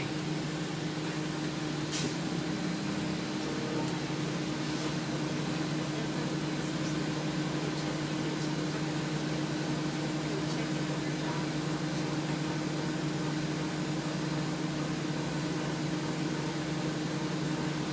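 Steady interior drone of a 2000 Nova Bus LFS city bus, heard inside the passenger cabin: the Detroit Diesel Series 40 engine and the ventilation fans running with an unchanging hum. A faint tick comes about two seconds in.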